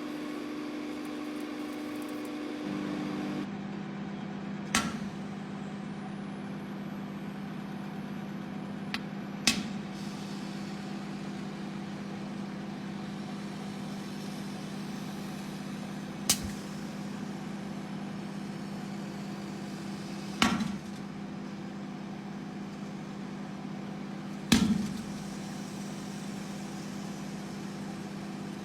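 Microwave oven running with a steady hum, which settles to a lower pitch about three seconds in. Five sharp pops, each with a short ringing tail, come at uneven gaps of four to seven seconds.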